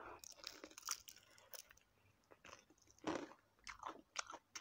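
Crunching bites and chewing of crispy deep-fried chicken feet: a string of irregular, crackling crunches, the loudest a little after three seconds in.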